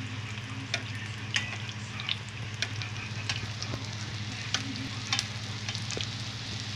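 Spring rolls shallow-frying in oil in a nonstick pan: a steady sizzle full of crackles and pops, with sharper clicks now and then as tongs turn the rolls. A steady low hum runs underneath.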